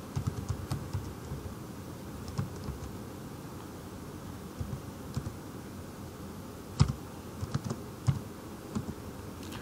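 Computer keyboard typing: scattered key clicks in short irregular runs, over a faint steady hiss.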